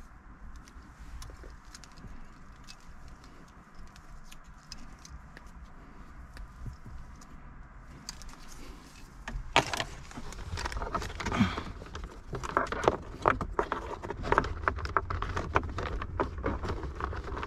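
Handling of a car radio's wiring harness: cables, plugs and connectors rustling and clicking. Faint at first, it turns louder about halfway through, with many sharp clicks and scrapes as the leads are pushed behind the plastic console trim.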